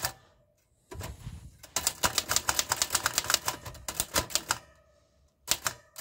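A 1942 Remington Envoy portable typewriter being typed on, its typebars striking a freshly re-covered platen: a quick run of keystrokes from about two seconds in to about four and a half, then a few single strokes near the end.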